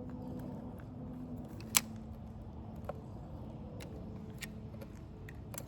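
Scattered small clicks and taps from handling fishing tackle, with one sharp click about two seconds in, over steady low background noise.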